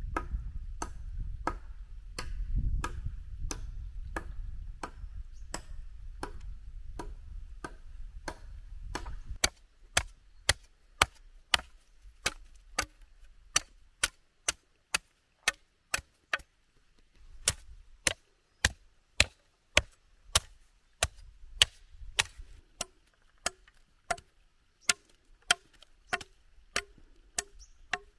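Machete blade chopping into a bamboo pole, steady strokes about twice a second, shaving it down to a point. A low rumble runs under the strokes for about the first nine seconds.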